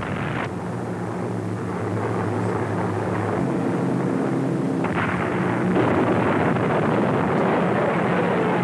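Propeller aircraft engines droning steadily under a rushing noise, growing louder about five seconds in.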